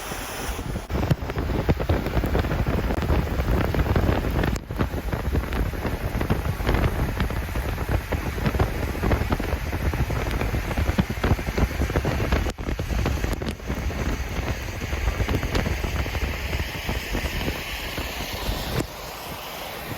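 Heavy rain falling steadily, with wind buffeting the microphone.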